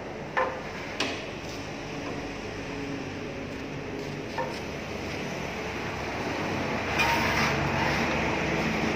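A few sharp metallic knocks and clunks over steady workshop background noise as the aluminium cutting saw is handled and adjusted. The knocks come about half a second in, about a second in, a little past four seconds and around seven seconds.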